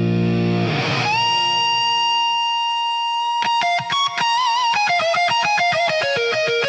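Slow blues electric guitar solo: a note bent upward and held for a couple of seconds, then a quick descending run of picked notes, some with vibrato.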